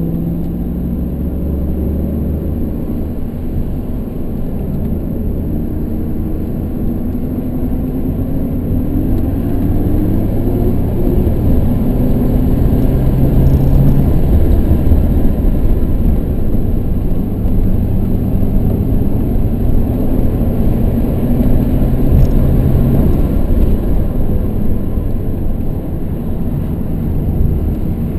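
BMW 118d's four-cylinder turbodiesel engine heard from inside the cabin, pulling hard, its pitch rising through the revs, over a dense low road and tyre rumble. The sound grows louder through the middle stretch and eases off near the end.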